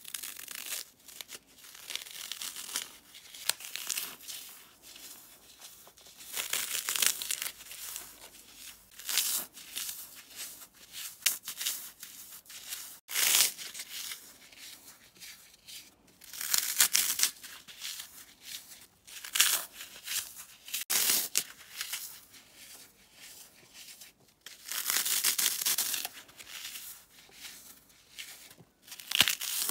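Dry green floral foam coated in baby powder crunching as it is squeezed and crumbled by hand. The crunches come in irregular bursts, a few of them louder and longer.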